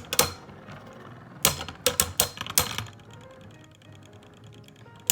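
Spinning Beyblade tops clashing in a plastic stadium: a quick run of sharp clacks in the first three seconds, then quieter spinning until another clack near the end.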